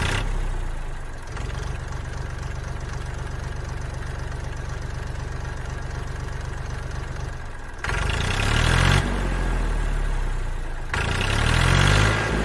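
Small diesel engine running with a steady rapid beat, getting louder and rising in pitch twice in the second half.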